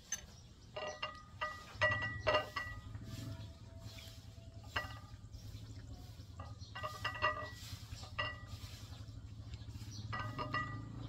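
Light clinks in small irregular clusters, each ringing briefly, over a low steady hum.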